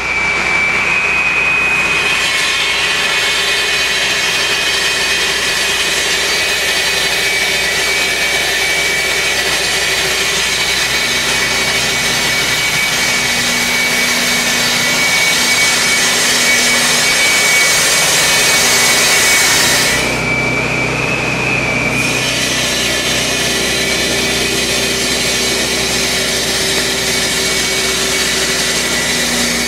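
Masonry saw cutting through a clay paver: a steady motor whine under the harsh grinding hiss of the blade in the brick. About two-thirds of the way through, the grinding drops away for a couple of seconds and the blade runs free, then it bites into the paver again.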